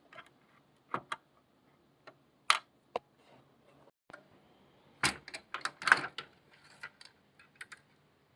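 Scattered small clicks and knocks of parts and tools being handled while a JVC HR-XVC16 VCR's video head assembly is taken apart, with a quick cluster of clatter about five to six seconds in.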